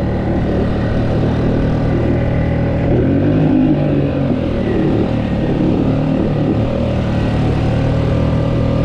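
Honda 5 hp single-cylinder four-stroke outboard running hard at about 80% throttle, driving an inflatable skiff through choppy water, its pitch wavering slightly. The owner suspects seaweed wrapping the propeller is holding it back.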